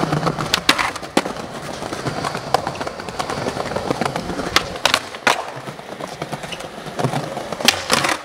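Skateboard wheels rolling over smooth stone paving, broken by several sharp clacks of the board hitting the ground. Near the end the board's trucks strike a stone ledge twice in quick succession.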